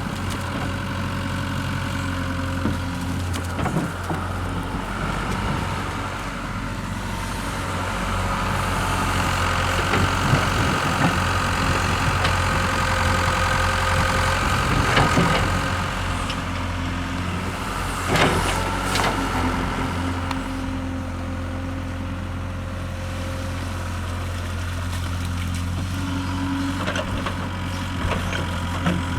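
Hitachi excavator's diesel engine running steadily, working harder and louder through the middle stretch. A few sharp clanks come about two-thirds of the way through.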